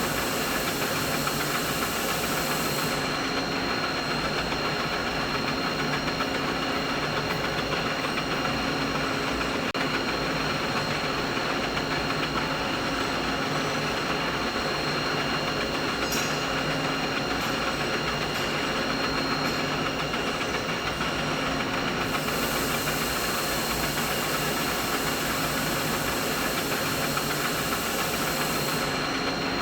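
Steady machinery hum: an even mechanical noise with a few constant tones running through it. The highest hiss drops away a few seconds in, comes back about two-thirds of the way through, and drops away again near the end.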